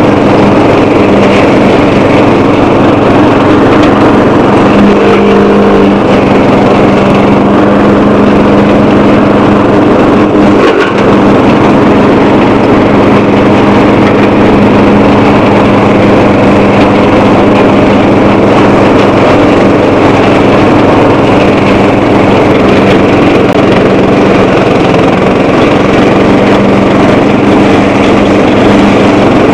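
Bolens 12 hp lawn tractor engine running loud and steady while mowing through tall brush, with a brief dip about a third of the way in.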